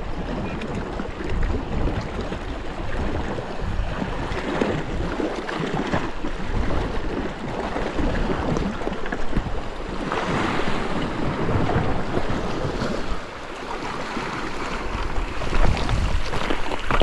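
Sea waves washing against the rocks, with wind rumbling on the microphone; a louder wash comes about ten seconds in.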